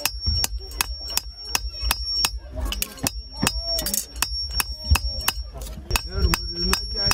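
Hand hammer striking sheet metal on a small iron post anvil in quick, steady blows, about three or four a second, each with a short metallic ring.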